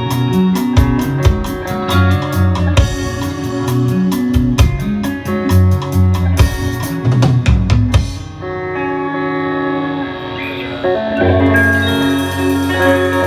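A band playing an instrumental stretch on drum kit, bass and guitar. About eight seconds in the drums and cymbals drop out, leaving held guitar and bass notes, and the full band comes back in about three seconds later.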